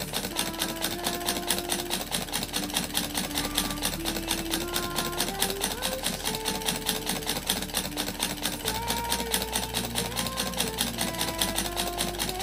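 Homemade tin-can Stirling engine running, its bent-wire crankshaft and linkage clattering rapidly and evenly as the flywheel and propeller spin. Faint music with slowly changing notes underneath.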